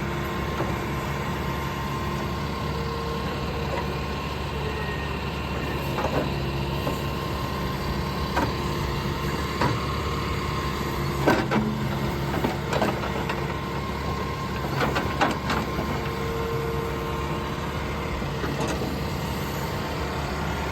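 John Deere 310K backhoe's diesel engine running steadily, with a few sharp clanks scattered through.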